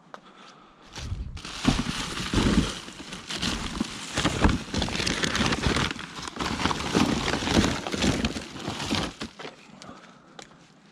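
Loud, irregular rustling and crackling for about eight seconds, starting a second or so in and dying away near the end, like close handling and rummaging noise.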